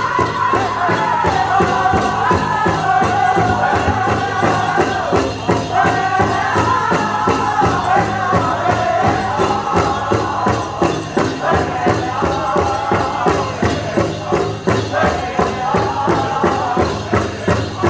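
A powwow drum group sings a Prairie Chicken dance song over a steady beat on a big drum. The singing breaks off briefly twice while the drumbeat carries on.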